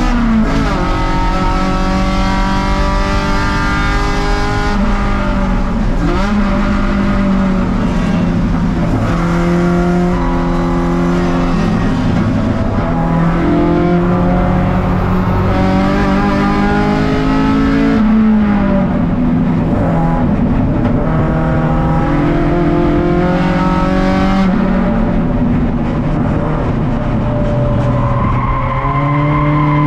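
A race car's engine heard from inside its stripped, roll-caged cabin. The revs climb and then drop sharply several times as the driver works through the gears.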